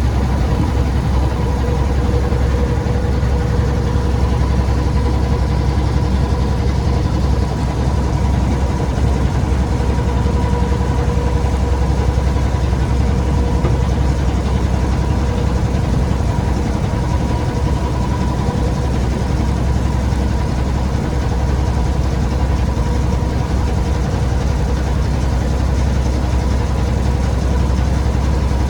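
An engine running steadily: a loud low rumble with a constant hum that does not change in speed.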